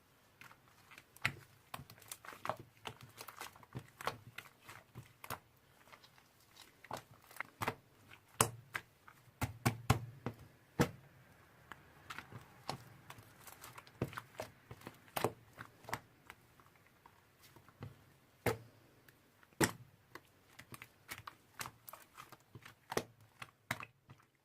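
Slime being squeezed, poked and stretched by hand, giving off irregular sharp clicks and crackling pops as air pockets burst, several a second, busiest about halfway through.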